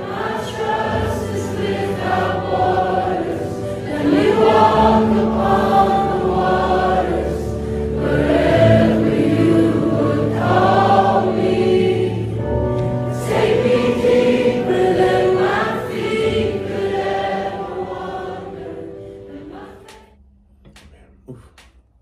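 Gospel choir music: voices singing together over held low notes, fading out near the end.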